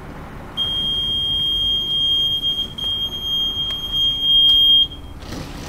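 Alarm buzzer of the DCC cabinet sounding one continuous high-pitched tone for about four seconds, starting about half a second in, with a few faint clicks. It signals that the PSX circuit breaker has tripped on a short as the locomotive reaches the frog-juicer point, cutting power to that section.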